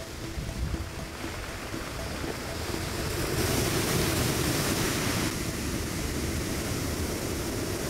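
Sea surf washing in over a shore of rounded stones, a steady rushing of water. A bigger wave surges in about three and a half seconds in and eases off about two seconds later.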